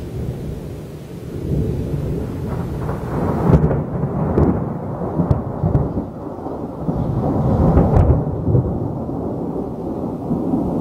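Loud, low rolling thunder from a close thunderstorm, swelling and fading in waves, loudest about four seconds in and again about eight seconds in.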